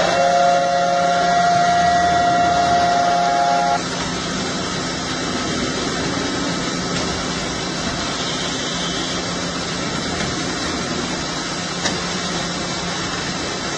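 Large milling machine running with a steady mechanical noise. For the first four seconds a steady, multi-pitched whine or horn-like tone sounds over it, then cuts off abruptly. A single sharp click comes about twelve seconds in.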